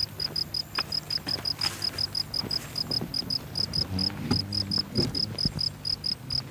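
An insect chirping in a steady, fast rhythm of short high chirps, about seven a second. A faint low hum and a few soft clicks sit underneath.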